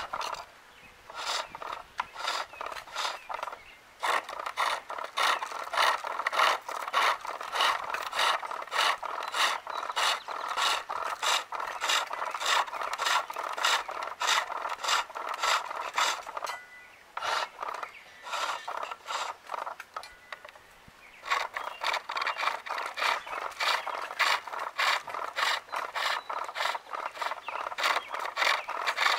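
Skew chisel shaving a maple spool turning on a pole lathe: a rhythmic cutting sound that pulses about three times a second as the work spins back and forth. It stops briefly about four seconds in and pauses for a few seconds a little past the middle.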